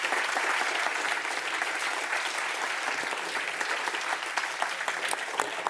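Audience applauding steadily, the many close-spaced claps of a roomful of hands.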